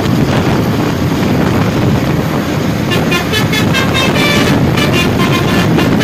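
Bus telolet horn playing a quick run of short musical notes, starting about three seconds in, over steady road noise.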